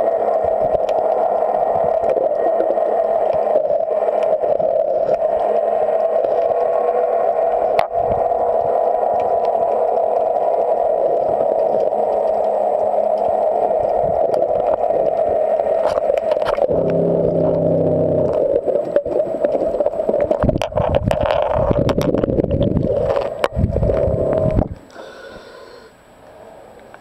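Muffled underwater noise picked up by a camera moving along a fouled yacht hull: a loud, steady hum with scattered knocks and scrapes. The hum cuts off abruptly near the end, leaving a much quieter hiss.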